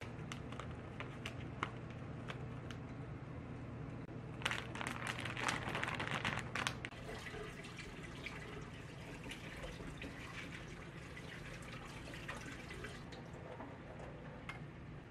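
Kitchen tap water running onto shredded cabbage in a metal colander, splashing and draining into the sink, with the leaves rustling as they are handled. There are light crackles early on, a louder, denser stretch a few seconds in, and a steady low hum underneath.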